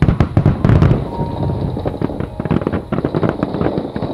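Japanese aerial firework shells bursting in a rapid barrage: heavy booms in the first second, then dense crackling from glittering stars.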